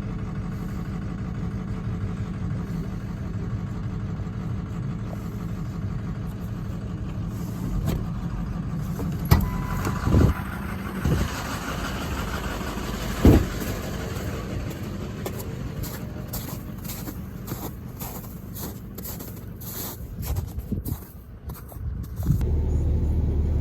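Truck driving on a rough road while towing a loaded trailer: steady engine and road noise, with a few sharp knocks from about nine to thirteen seconds in. Near the end it cuts abruptly to a different, steadier low hum.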